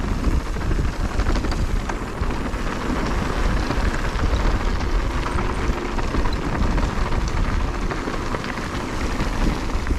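Mountain bike rolling down a hardpack dirt trail: steady tyre crackle on dirt and grit, scattered clicks and rattles from the bike, and low rumbling wind on the microphone.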